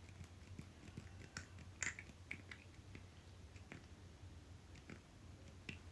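Faint, scattered small clicks and taps of small plastic makeup pieces being handled, over a low steady hum.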